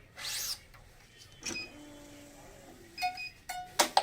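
Badminton racket being strung: a quick high zip of string drawn through, then short metallic pings of taut strings and a few sharp clicks near the end.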